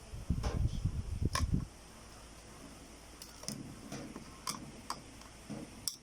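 Small screwdriver working the screws out of a plastic mini Wi-Fi router case, with handling noise for the first second and a half, then scattered light clicks and ticks.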